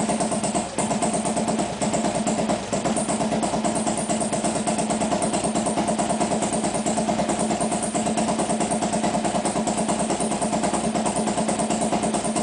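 Harley-Davidson motorcycle's V-twin engine idling steadily with an even, rhythmic pulse.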